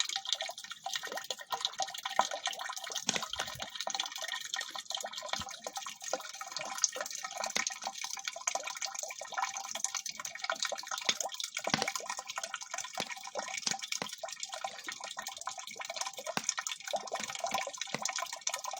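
Hot water gurgling and spattering in a homemade rocket stove water heater, a continuous crackly splashing with many small drips and pops.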